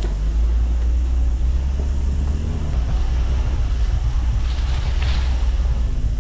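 Mitsubishi L300 Delica van driving uphill on a dirt four-wheel-drive track: a steady, heavy low rumble of engine and running gear under an even noisy hiss, with a brief brighter hiss about five seconds in.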